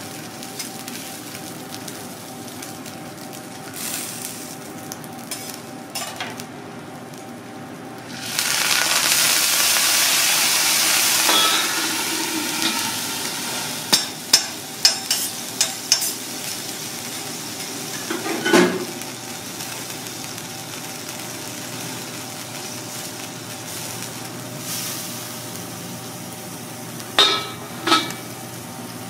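Tiger prawn sizzling on a hot steel teppanyaki griddle, with a loud surge of sizzling hiss about eight seconds in that lasts some three seconds. Short metal clinks of spatulas and a copper dome lid on the griddle follow in a quick run, then once more and twice near the end.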